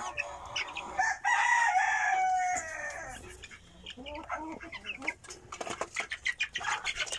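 A rooster crows once, about a second in, with a long call of about a second and a half that falls in pitch at the end. It sounds over a flock of month-old chicks cheeping and clucking, with a run of quick clicks near the end.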